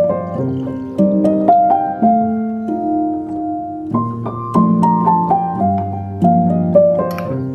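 Background piano music: a gentle melody of single notes stepping downward over held chords, the phrase repeating about every four seconds.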